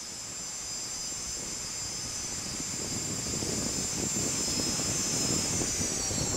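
Jet aircraft engine approaching, its high whine and rumble growing steadily louder; near the end the whine starts to drop in pitch as the jet passes.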